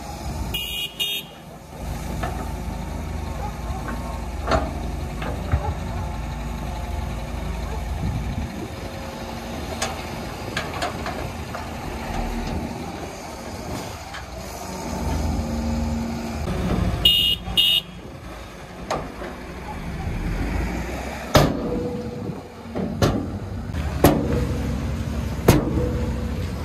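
Heavy diesel dump truck running while its raised bed tips a load of soil, with a steady low engine rumble. A short high-pitched sound comes twice, near the start and again past the middle, and several sharp metallic clanks come in the last few seconds.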